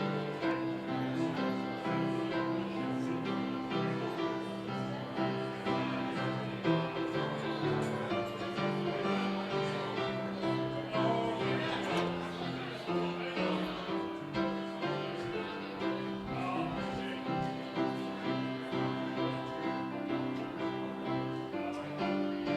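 Instrumental music: slow held chords with a melody over them.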